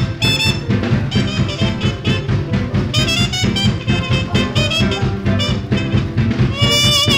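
1944 swing small-band jazz recording: a trumpet plays a lead line over a rhythm section with drums.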